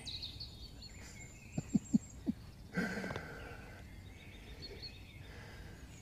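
Quiet woodland ambience with faint bird chirps. Just under two seconds in there are three short, low squeaks in quick succession, followed by a brief rustle.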